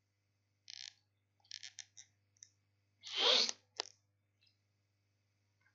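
A few faint scattered clicks, then about three seconds in a short, louder burst of breath noise from a person close to the microphone, followed by one sharp click. A faint steady low hum runs underneath.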